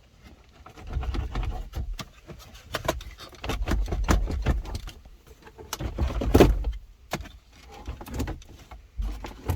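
Clicks, knocks and rattles of a car's dashboard radio assembly and its plastic trim being worked loose and pulled out by hand, with low bumps throughout and one louder knock about six seconds in.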